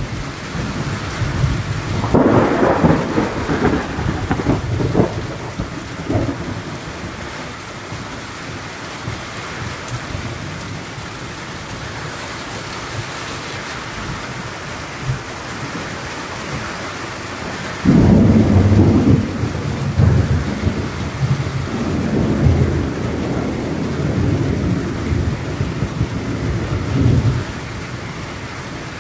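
Steady rain falling on trees and surfaces, with two long rolls of thunder. The first rumbles from a couple of seconds in; the second breaks suddenly a little past halfway and rolls on for several seconds.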